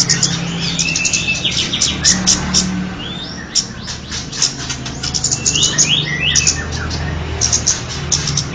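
Kemade bird calls played as a lure recording: rapid high chirps mixed with short whistled notes, some sliding up or down, over a steady low hum.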